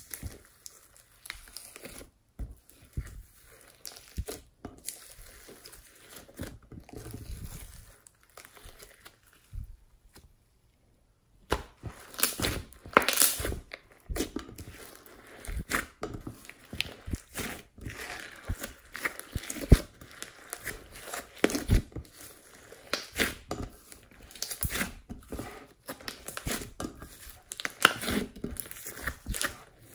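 Hands squishing, kneading and stretching glittery pink slime, giving irregular sticky crackles, pops and tearing sounds. It drops to near silence for about a second and a half near the middle, and is louder and busier after that.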